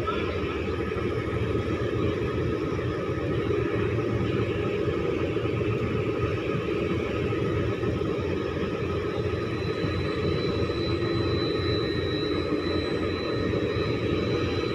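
Ship's deck crane machinery running steadily as it lowers a slung container into the hold, a continuous drone with a thin high whine that comes in about two-thirds of the way through.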